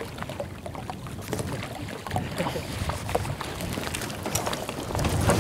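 Small waves lapping and slapping against the hull of a bass boat, with many short clicks and knocks throughout and the sound swelling a little near the end.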